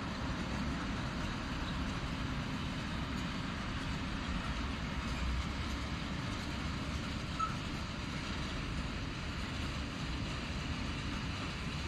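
Freight train of open gondola wagons behind a PKP Cargo ET22 electric locomotive rolling past, a steady noise of wheels running on the rails.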